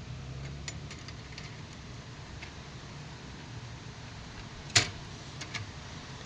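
Small clicks and clinks of tools being handled in a toolbox, with one sharp click nearly five seconds in, over a low steady hum.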